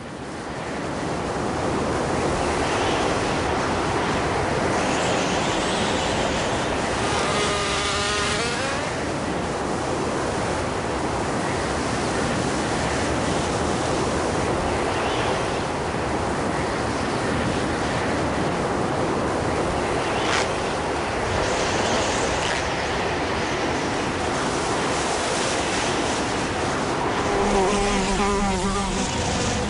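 Wind blowing in strong gusts, a steady rushing noise that swells and eases every few seconds. A wavering buzz comes in briefly about eight seconds in and again near the end.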